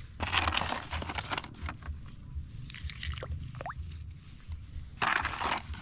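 Three short bursts of rustling and clatter as a batch of bisukol (freshwater snails) is tipped out into a duckweed pond, over a low rumble.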